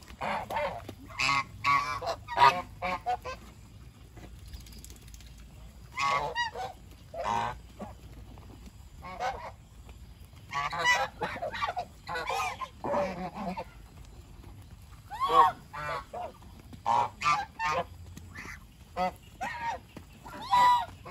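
Domestic geese honking in clusters of short calls, with gaps of a second or two between clusters.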